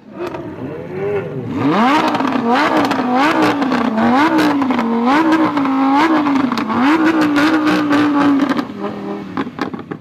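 Lamborghini Huracán Performante's V10 being revved hard over and over, its pitch climbing and dropping about every two-thirds of a second, with crackles and pops from the exhaust. Near the end the note holds steady for a moment, then drops away.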